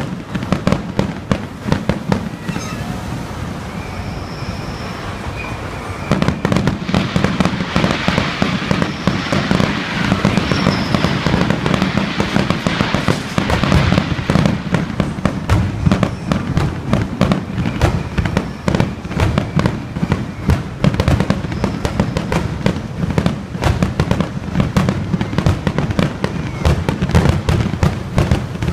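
Fireworks going off in rapid, continuous bangs and crackles, lighter for a few seconds and then much denser and louder from about six seconds in.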